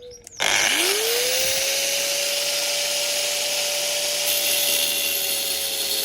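Makita angle grinder switched on: its whine rises quickly in pitch as the motor spins up about half a second in, then it runs steadily at one high pitch over a loud hiss.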